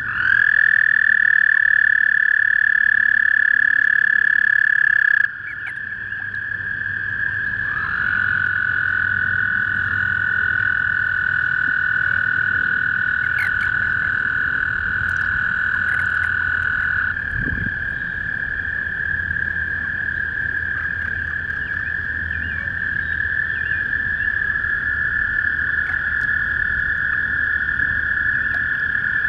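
Several toads calling from a pond, each holding a long, steady, high trill for many seconds. Their trills sit at slightly different pitches and overlap: one stops about five seconds in, a lower one starts around eight seconds and runs to about seventeen, and another joins near the end.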